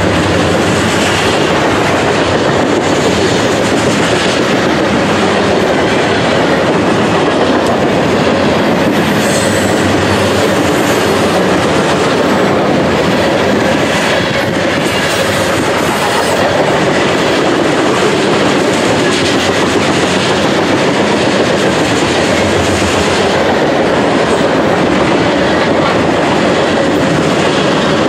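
Covered hopper cars of a long freight train rolling past close by: a loud, steady rumble of steel wheels on rail with the repeated clickety-clack of wheels passing over rail joints.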